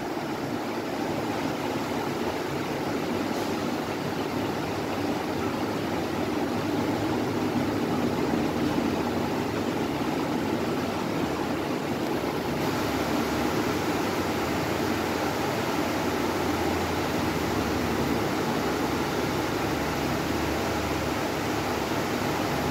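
Steady rushing background noise with a faint low hum and no distinct events; its high end drops a little about halfway through.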